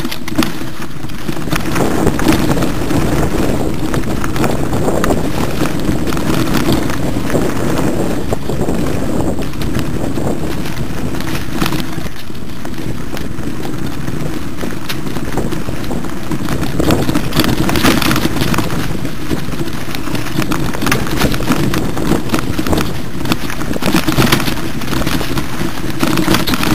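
Wind buffeting the microphone of a camera on a mountain bike ridden along a rocky singletrack, with a constant rattle and clatter of tyres on stones and the bike shaking over the rough ground.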